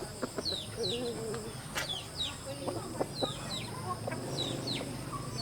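Chickens clucking in short, low calls, over a run of high, falling chirps that repeat about twice a second.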